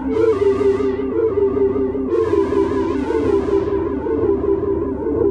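Synthesizer notes run through the Korg PME40x digital delay module driven into overload, the echoes piling up into a sustained, wavering wash that feeds on itself and won't stop. New notes strike at the start, about two seconds in and again about three seconds in.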